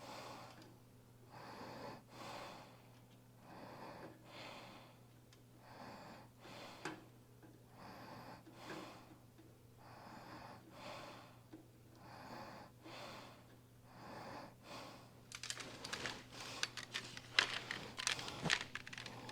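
Hand tools running the nuts down onto the oil pan studs of a small-block Chevy 350: soft, even strokes about once a second, then a faster run of sharp metallic clicks in the last few seconds.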